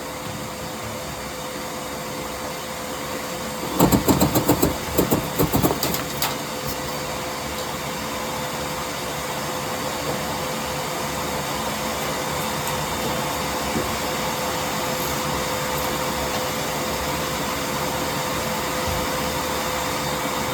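Vacuum running steadily with a constant motor whine. About four seconds in, a burst of clattering knocks lasts about two seconds.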